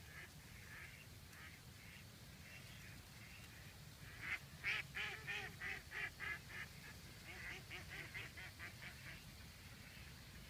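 Ducks quacking: a few faint calls, then a loud run of about ten quick quacks starting about four seconds in, followed by a second, faster run.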